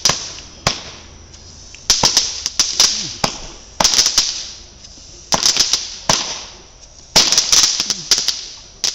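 Fireworks going off: bursts of sharp cracks and pops every second or two, each trailing off in a fading crackle.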